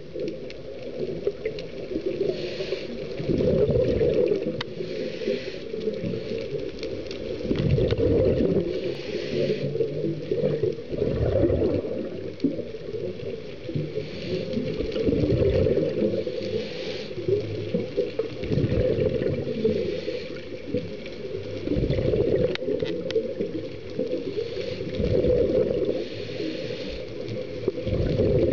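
A scuba diver breathing through a regulator, heard underwater: a hiss on each inhale alternating with the low bubbling rumble of exhaled bubbles, about one breath every three to four seconds.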